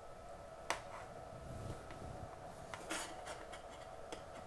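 Faint handling noises of small parts and tweezers on a paper-covered workbench: a few light clicks, the clearest about a second in and again near three seconds, with some soft rubbing over a faint steady hum.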